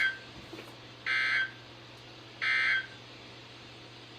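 Emergency Alert System SAME end-of-message data bursts from a weather radio broadcast: short, harsh digital screeches, the tail of one ending just after the start and two more following about 1.3 s apart. They signal that the warning message is over.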